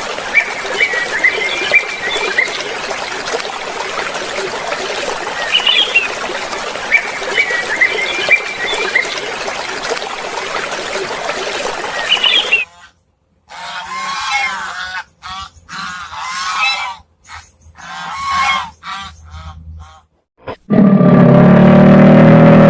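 Geese honking in a series of short separate calls, after a long stretch of busy chirping bird calls over a steady hiss. Near the end a loud, low, steady roar comes in.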